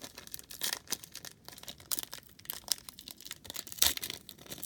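Wrapper of a trading card pack being torn open and crinkled by hand: irregular crackling and tearing, loudest near the end.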